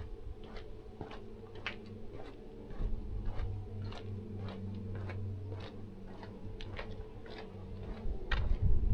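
Footsteps on a path: light, regular ticks about three a second over a faint steady low hum.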